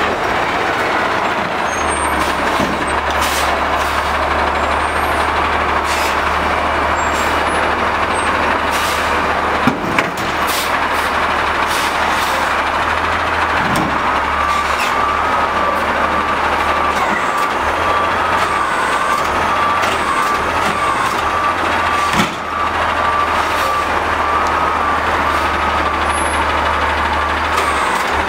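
Heil front-load garbage truck on an Autocar ACX chassis with a compressed-natural-gas engine, running steadily as it manoeuvres at a dumpster. A back-up alarm beeps steadily from about halfway through. A couple of metal clanks are heard, one about ten seconds in and one about twenty-two seconds in.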